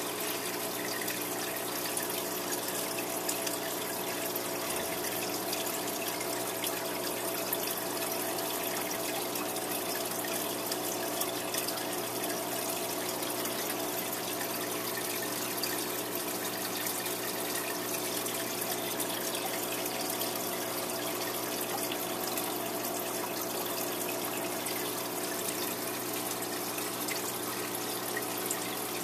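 Aquarium filter or pump running, with a steady trickle and bubbling of water into the tank over a constant low hum.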